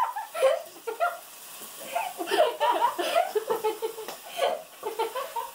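Girls giggling and laughing in short bursts over vegetables sizzling faintly in a hot pan.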